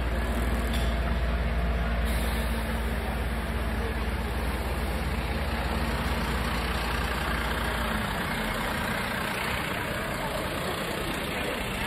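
Fire engine's diesel engine idling, a steady low hum over general street noise; the low hum drops away about eight seconds in.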